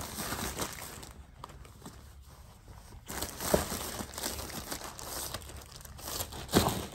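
Thin plastic packaging bag crinkling and rustling as it is handled, fainter between about one and three seconds in, with a few sharper crackles later.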